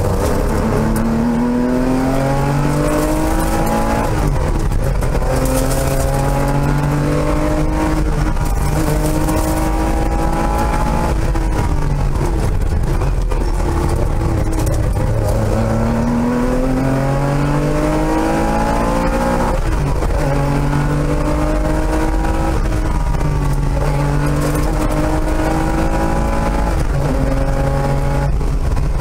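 Porsche 911 RS rally car's air-cooled flat-six engine at full effort, heard from inside the cockpit. Its pitch climbs under acceleration and falls back at each gear change, over and over, over steady road and wind noise.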